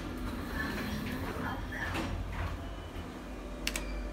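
A 2010 Thyssenkrupp machine-room-less traction lift heard from inside its car: a steady low hum with some faint scraping, and a sharp click near the end.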